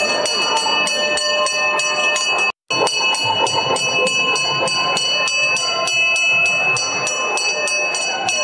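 Bells rung rapidly and continuously, about five strikes a second with a steady metallic ring, accompanying a Hindu arati (lamp-waving) puja. The sound breaks off briefly about two and a half seconds in, then resumes.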